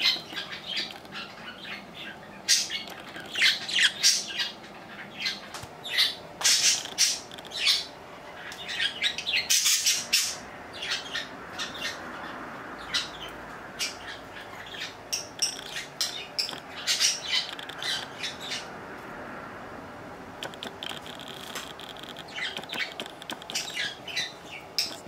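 Pet budgerigars chirping and squawking in many short, sharp calls, with a dense flurry of calls about ten seconds in.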